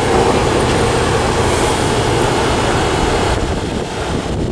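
A loud passing vehicle, a steady rumbling noise that eases off about three seconds in.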